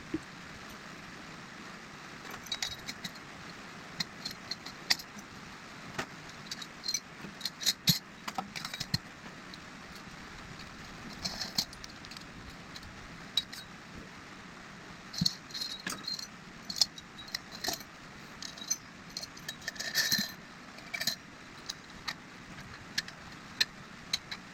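Hand tools and small metal parts clinking and tapping against each other in scattered, irregular bursts of light metallic clicks, some with a short ring, as motorcycle front fork parts are handled.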